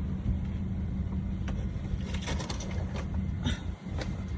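Van engine idling, a steady low hum, with a few light clicks and rustles over it.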